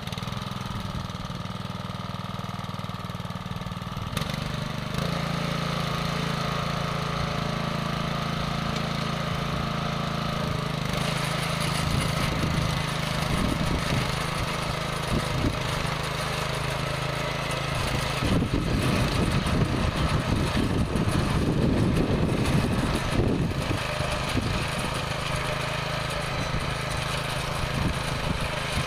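Engine of a walk-behind rotary tiller (motocultor) running steadily as it tills soil, picking up speed about five seconds in. Louder clattering sets in for several seconds past the middle.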